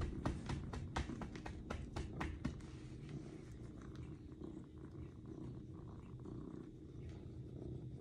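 Domestic cat purring steadily and contentedly while being petted, with a quick run of pats on its rump, about four a second, over the first couple of seconds.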